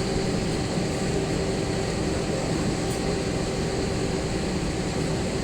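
Steady cabin noise inside an Airbus A321 with its IAE V2500 engines running: an even rush of engine and air noise with faint steady hums underneath.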